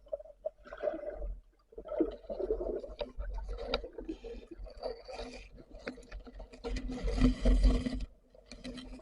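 Muffled underwater sounds: scattered clicks and irregular bubbling, with a louder rushing burst about seven seconds in.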